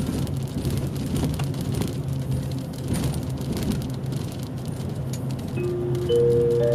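Steady engine drone and road noise inside a highway coach's cabin. Near the end, a rising three-note chime rings out and holds: the chime of the coach's automatic announcement system.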